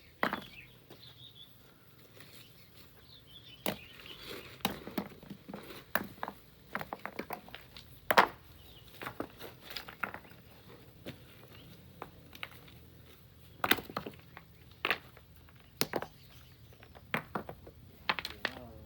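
Stones and pebbles knocking and clattering as sand and rock are mined loose: irregular sharp knocks, some in quick clusters, the loudest about eight seconds in.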